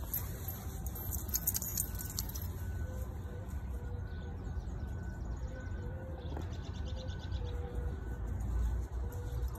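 Outdoor ambience: a steady low rumble with faint, short bird calls scattered through it and a quick high trill about halfway through.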